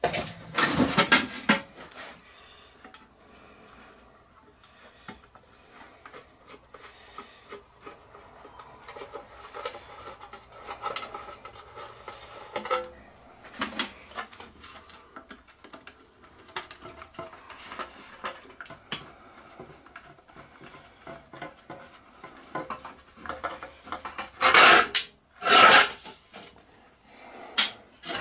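Thin tin-plate cylinder lagging and its brass banding being worked off a steam engine cylinder: metallic rattling, scraping and small clinks. It is loudest at the start and again a few seconds before the end.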